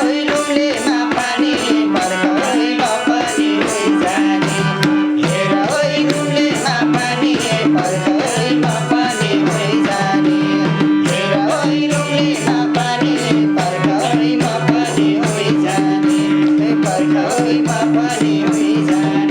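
Instrumental break of Nepali dohori folk music: a fast, even hand-drum rhythm under a held low drone and a winding melody line.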